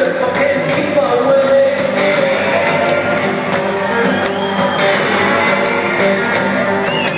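Live rock band playing, with electric guitar prominent, heard from the audience in a large concert hall.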